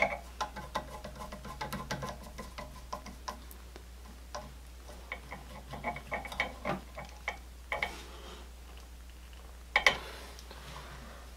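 Screwdriver turning a receptacle's screw terminal down onto the neutral wire: a run of small irregular clicks and ticks as the screw turns and the tip reseats, with a sharper click at the start and another about ten seconds in.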